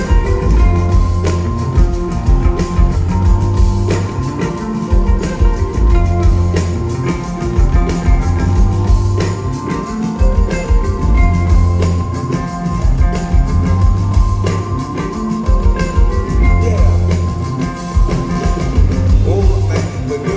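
Live soul-rock band playing, with the drum kit and a heavy bass line to the fore.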